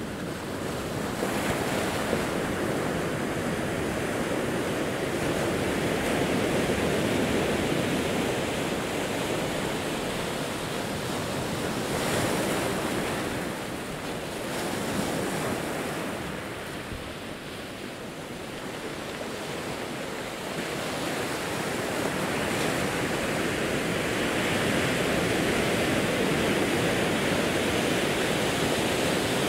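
Ocean waves breaking and washing over a rocky, pebbly shore, a continuous rushing that swells and eases in slow surges.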